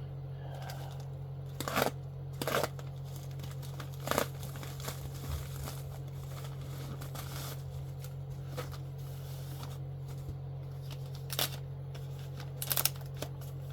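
Packaging being handled: a few short crinkling, tearing rustles, about five scattered bursts, over a steady low electrical hum.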